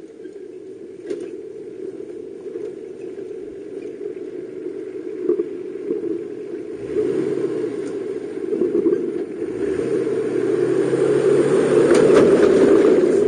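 Off-road 4x4 engine running as the vehicle comes down a sandy dirt track, growing steadily louder as it nears. Near the end, its large mud tyres pass close by with a rising hiss of tyres and sand.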